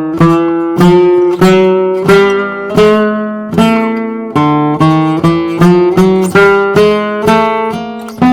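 Handcrafted flamenco guitar with a cedar top and cypress back and sides, played in a run of chords. There is a sharp stroke about every half-second, and each chord rings on until the next.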